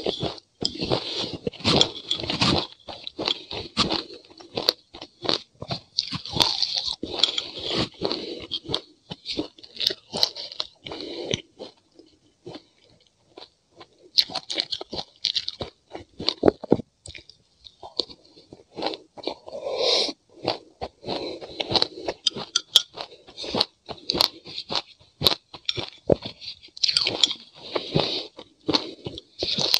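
Close-up crunching and chewing of a frozen mix of passionfruit and sesame seeds, with a metal spoon clicking and scraping in a glass mug. There is a brief lull about twelve seconds in.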